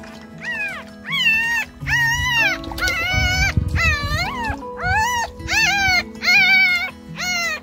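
Two-day-old puppies squealing in distress: about ten short, high-pitched cries in a row, each rising and then falling in pitch. Background music with held chords runs underneath.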